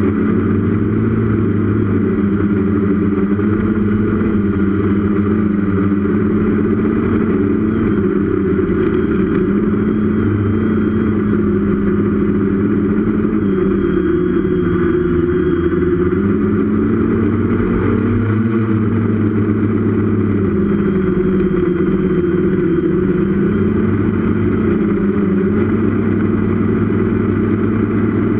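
Brushless motors and propellers of a 6S FPV quadcopter, recorded by its onboard camera in flight: a steady multi-tone whir whose pitch sags and climbs gently with the throttle, dipping and recovering around two thirds of the way through.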